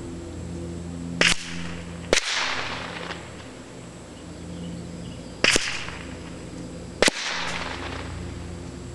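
Four sharp gunshot cracks from shots fired at the target from about 150 yards away: one about a second in, another about two seconds in, then two more about five and a half and seven seconds in, each trailing off in a short echo. A steady low hum runs underneath.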